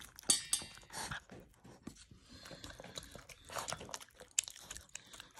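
A small dog eating chunks of raw beef from a stainless steel bowl: irregular chewing and crunching with quick small clicks, and one sharper click just after the start.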